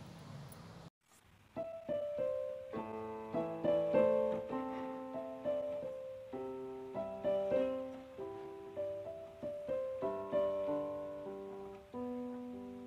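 Background piano music: a melody of struck notes that starts about a second and a half in, after a faint hiss that cuts off.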